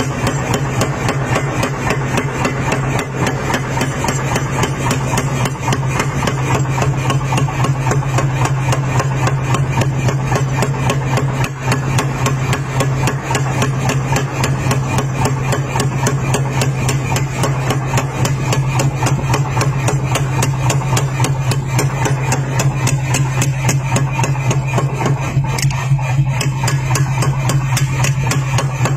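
Power hammer forging a red-hot knife blade: rapid, even blows of the ram on the steel, over a steady low hum.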